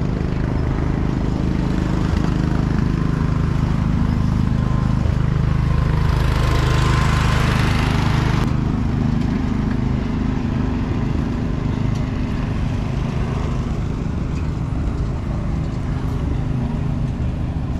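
An engine running steadily. About six seconds in a loud hiss starts, lasts two to three seconds and cuts off suddenly.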